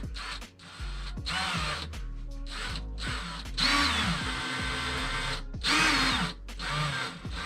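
Power drill driving a wood screw into a wall stud without a pilot hole, in about six short bursts, the motor speeding up and slowing down with each trigger pull.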